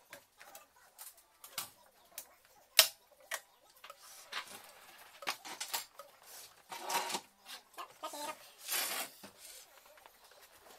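Irregular clicks, knocks and scrapes of plastic and metal parts being handled on a Eumig R2000 film projector, with one sharp click about three seconds in and longer scraping rubs near the end as a cover plate is worked into place.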